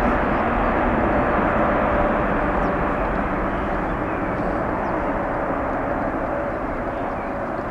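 Boeing 787-9 twin-engine jet airliner on its takeoff roll at takeoff thrust: a steady jet roar with a faint steady whine in it, slowly fading as the aircraft accelerates away down the runway.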